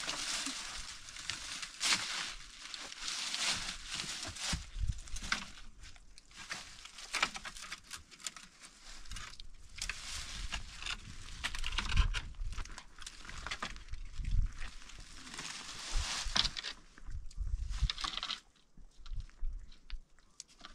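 Irregular rustling, crinkling and tearing noises with scattered dull thumps, quieting down near the end.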